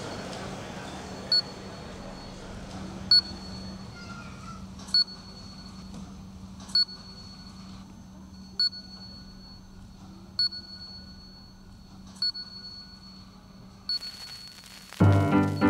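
Supermarket checkout barcode scanner beeping as items are scanned, one short high beep about every two seconds, eight in all, over a steady low hum. Music starts loudly about a second before the end.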